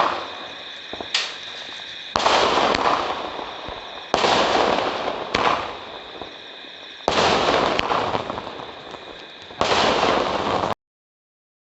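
Fireworks shells bursting: six loud bangs, one every one to three seconds, each followed by a long fading tail of noise. The sound cuts off abruptly near the end.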